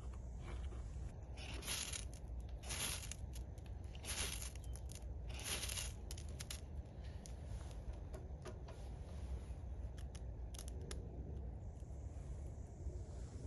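A ferro rod is struck four times in quick succession, about once every second and a half, each stroke a short, bright scrape that throws sparks onto birch-bark tinder. Scattered short clicks and crackles follow.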